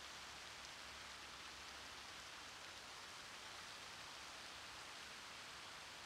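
Faint, steady splashing of a multi-jet fountain's water falling back into its pool, an even hiss without breaks.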